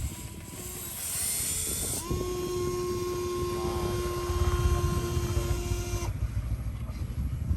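A small motor whines at a steady pitch for about four seconds, starting about two seconds in and cutting off near the end, over a low rumbling.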